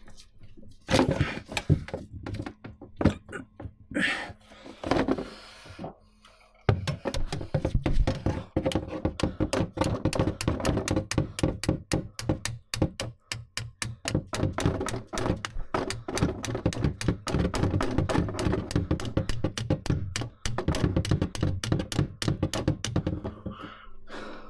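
Hammer tapping on a rusted-in skid steer U-joint to drive it free: a few scattered knocks, a brief pause, then fast, even blows of about five a second.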